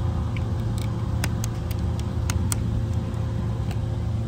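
Steady low mechanical hum, like an idling engine, with a scattered run of sharp clicks and crackles as a plastic tobacco tray and bag are handled.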